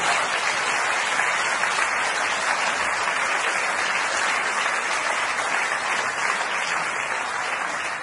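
Audience applauding in a steady, sustained round that begins to die down near the end.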